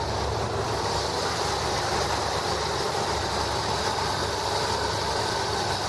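Freshly rebuilt car engine running steadily at idle.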